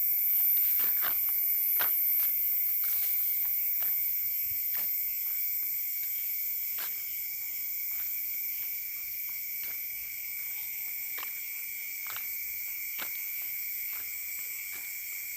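Night insects, crickets among them, chirring steadily in several high-pitched layers, with scattered faint clicks and ticks.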